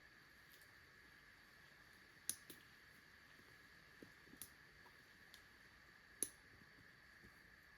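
Near silence with a handful of faint, sharp clicks scattered through it, the loudest about two seconds in and about six seconds in, over a faint steady high hum.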